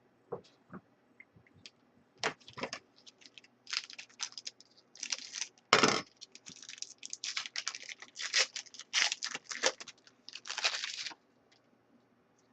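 Trading-card pack being torn open and handled: short crinkling and tearing of the wrapper and cards, with one sharper rip about halfway through.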